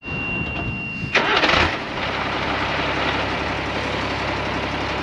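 Diesel engine of a 1983 Unimog U1700L truck being started: a steady high tone for about a second, then the engine fires and catches about a second in and settles into a steady idle.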